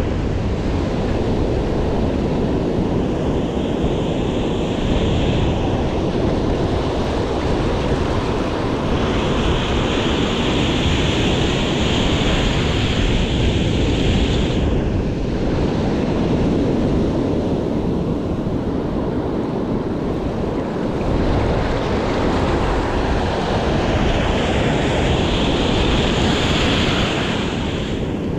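Sea waves and surf washing steadily, with wind noise on the microphone; a brighter hiss swells in and out about three times.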